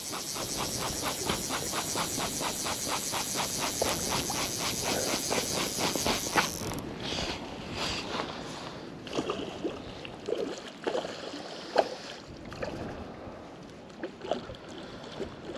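Fly reel's click ratchet clicking rapidly and evenly as slack line is wound back onto the reel while playing a hooked rainbow trout; the winding stops about seven seconds in. After that come scattered, irregular clicks and ticks.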